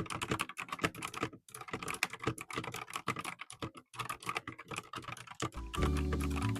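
Rapid typing on a Redragon K668 mechanical keyboard: a fast run of key clicks with two brief pauses. Background music comes in near the end.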